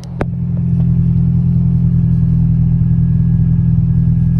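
1997 Nissan D21 pickup's engine starting, with a sharp click about a quarter second in, then settling into a steady idle.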